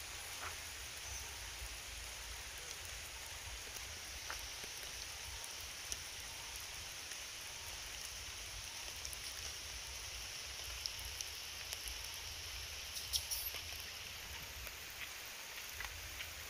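Steady rain falling on leaves and wet ground, an even hiss with scattered drop ticks and a brief flurry of clicks about three quarters of the way through.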